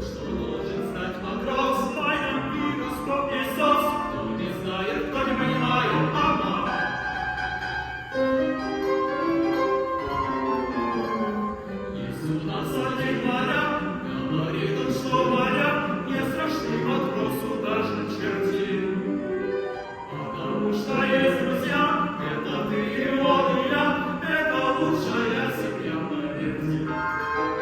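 Male voices singing an operetta couplet in an operatic style, with piano accompaniment.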